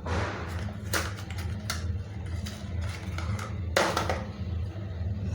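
Handling noise from cosmetics packaging: a few sharp clicks and taps, the strongest nearly four seconds in, over a steady low hum.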